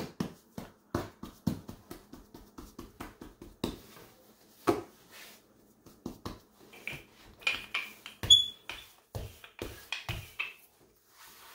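Fingertips patting and pressing risen pizza dough balls flat on a floured granite countertop, a quick run of soft taps, with a wooden rolling pin starting on the dough near the end.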